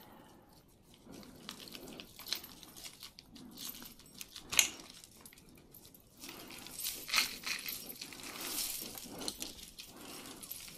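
Small metal jewelry pieces and chains clinking and jingling faintly as they are picked through and pulled apart, with scattered light clicks; the sharpest click comes about halfway through.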